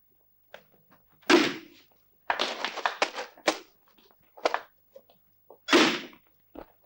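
A series of knocks and scraping noises with two louder dull thuds, one about a second in and one near the end.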